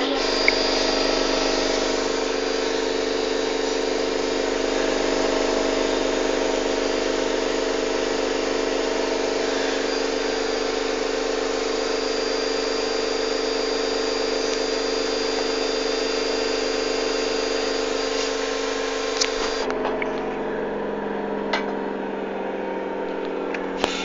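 Miele Grandiosa washing machine spinning a load of towels and a bath mat at high speed in its final 1500 rpm spin: a steady motor whine over a rushing hum. About twenty seconds in, the sound abruptly turns duller.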